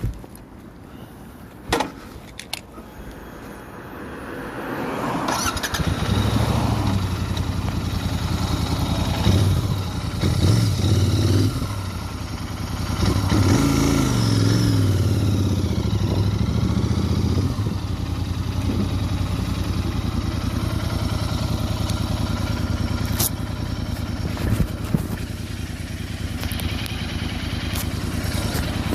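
Royal Enfield Interceptor 650's 648 cc parallel-twin engine started about five seconds in, after a few sharp clicks. It is blipped up and down a few times, then settles into a steady idle.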